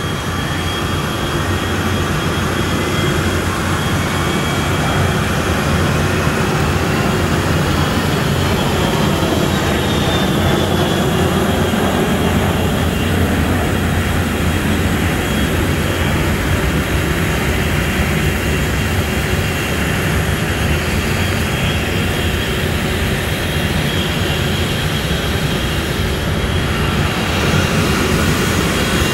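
Business jet's turbofan engines running at high power, a loud steady jet roar with a thin turbine whine that slowly rises in pitch over the first several seconds.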